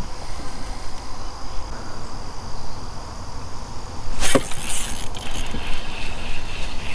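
Steady chirring of insects, likely crickets, under a low, uneven rumble of wind on the microphone. About four seconds in comes one brief whoosh as the spinning rod is swung in a cast.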